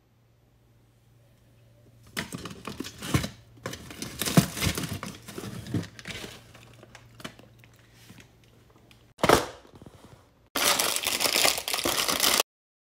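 Paper and cardboard ice-cream packaging rustling and crinkling as boxes are handled, in irregular bursts. Near the end comes a long, dense crinkle as a paper wrapper is torn open.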